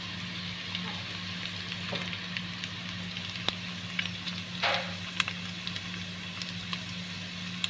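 Bacon and turkey sausage sizzling as they brown in a pot, stirred with a wooden spatula that clicks and scrapes against the pan now and then. A steady low hum runs underneath.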